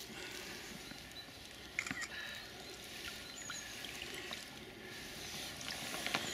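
Water splashing and sloshing as a large brown trout is handled in a landing net in shallow river water and lifted out by hand, with a few sharper splashes about two seconds in and near the end.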